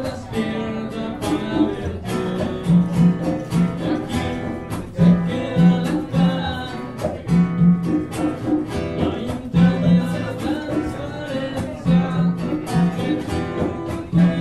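Live acoustic music: guitars strummed in a steady rhythm over repeated low bass notes, with a voice singing.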